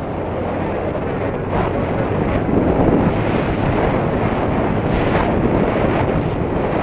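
Heavy wind buffeting on an action camera's microphone from a moving Yamaha Aerox 155 scooter. It grows louder over the first few seconds as the scooter speeds up, then holds steady.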